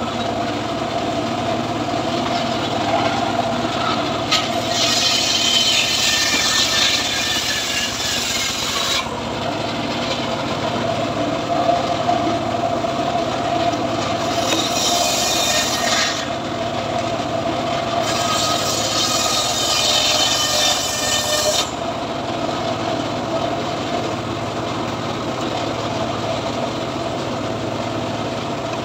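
Homemade sliding-table circular saw running steadily and cutting mahogany logs. The blade rips through the wood three times, a long cut starting about four seconds in and two shorter ones later. Each cut ends abruptly back to the plain running of the saw.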